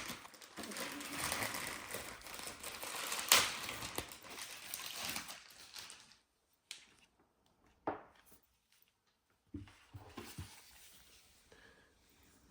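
Packaging rustling and crinkling as the robot vacuum is unwrapped and handled, with two sharp knocks, one at the start and one about three seconds in. After about six seconds the rustling stops, leaving only a few light knocks.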